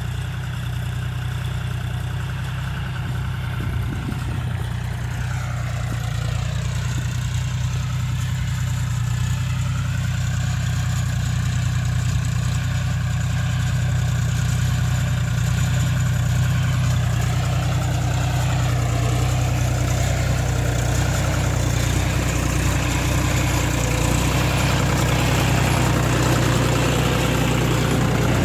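John Deere 5105 tractor's three-cylinder diesel engine running steadily under load while pulling a mouldboard plough through the soil, growing a little louder toward the end.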